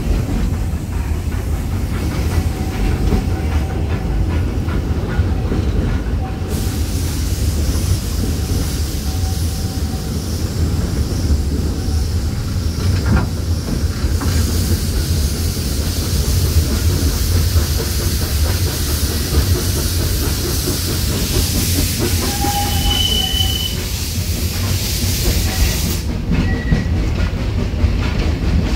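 Open passenger car of a park railroad train rolling along the track: a steady rumble with wheels clacking on the rails, and a hiss over it from about six seconds in until near the end.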